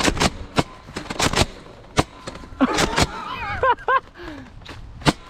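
Nerf Rival blasters firing foam balls: about ten sharp snapping shots and hits, some in quick runs of two or three. Short shouts or yelps cut in around the middle.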